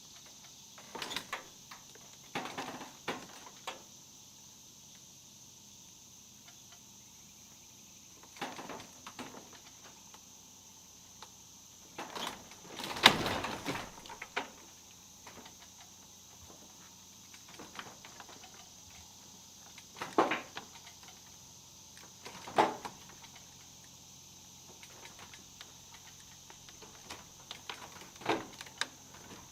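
Scattered creaks, scrapes and knocks, a dozen or so spread irregularly; the loudest is a longer scrape about 13 seconds in. A steady faint high hiss runs beneath.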